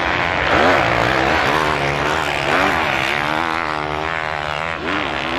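Several motocross bikes' engines revving, overlapping, their pitch rising and falling again and again as the riders open and close the throttle over the jumps.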